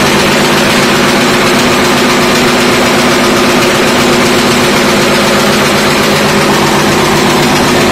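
An automatic wire nail making machine runs continuously, its heading hammer and cutter striking in a rapid, even clatter over a steady motor hum as nails are formed from wire.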